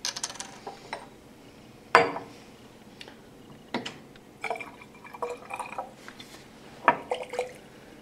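Buffer solution poured from a plastic bottle into a glass Erlenmeyer flask, a short gurgling trickle in the middle, among sharp knocks and clinks of glass flasks handled on the bench. The loudest knock comes about two seconds in.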